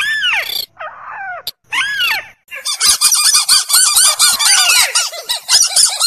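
Bird-lure recording of rail and crake calls: two loud descending nasal calls, then from about two and a half seconds in a rapid chattering run of harsh notes, about six a second.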